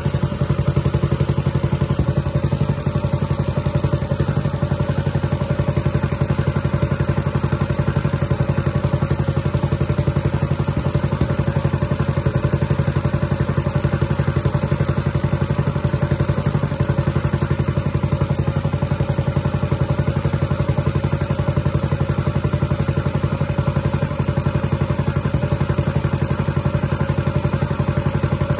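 Small single-cylinder engine on a garden tiller running steadily, warming up after a cold start.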